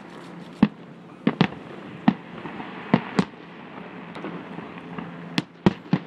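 Aerial firework shells bursting: about nine sharp bangs at irregular intervals, several of them in quick pairs.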